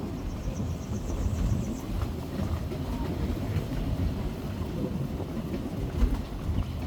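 A vehicle driving along a road: a steady low rumble of engine and road noise. A brief, rapid high-pitched trill sounds near the start.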